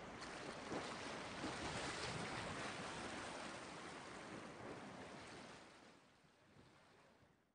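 Ocean waves washing in a steady, quiet rush that fades out over the last couple of seconds.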